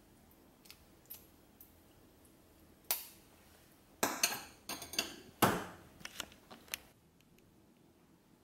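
Ladle clinking and knocking against a cooking pot and a ceramic bowl as soup is ladled out. A few faint taps come first, then a cluster of sharp clinks and knocks from about three to seven seconds in, the loudest about five and a half seconds in.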